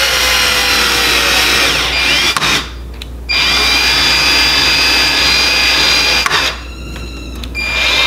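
Power drill driving the latch faceplate screws into the edge of a door, run steadily in bursts: about two and a half seconds, a short stop, about three more seconds, another stop of about a second, then starting again near the end.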